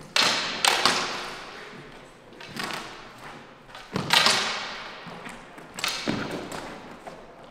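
Synthetic two-handed training swords (feders) clacking together in sparring, in quick pairs of strikes: twice near the start, once in the middle, and twice more in the second half. Each clack echoes off a large hall.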